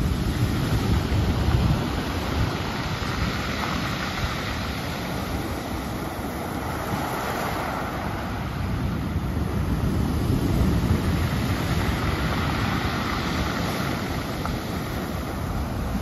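Ocean surf breaking against rocks and washing into a cove as white foam: a continuous rushing noise that swells with each breaking wave, loudest about ten seconds in and again at the end. Wind rumbles on the microphone underneath.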